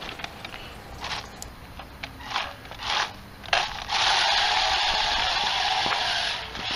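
Small 3D-printed four-wheel skid-steer robot driving over gravel: its plastic gearbox motors whir and its airless tires crunch on the stones in a few short spurts, then steadily from about four seconds in.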